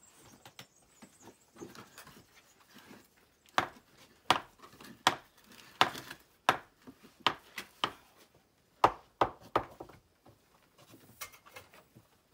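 Stone mason's hammer striking schist stones as they are dressed for a wall: a run of sharp knocks, two or three a second, from about three and a half seconds in until about ten seconds in.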